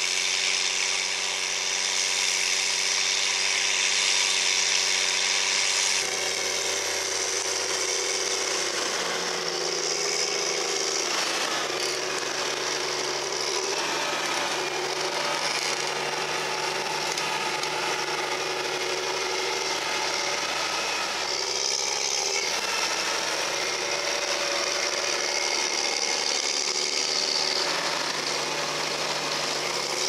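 Challenger MT765B tracked tractor's diesel engine running steadily under load while pulling a three-furrow plough, with a high whine over the engine note. The sound shifts abruptly a few times as the shot changes.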